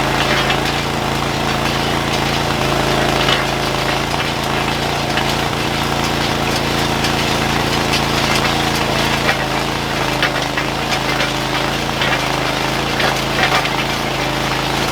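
An engine-driven machine running steadily at constant speed, with scattered clatter and knocks over it.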